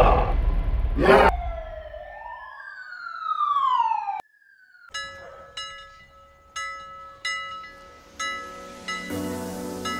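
Comedy sound effect of several falling, siren-like pitch glides lasting about three seconds, cut off suddenly. After a second's pause a sparse plucked comic tune begins, with notes a little more than one a second.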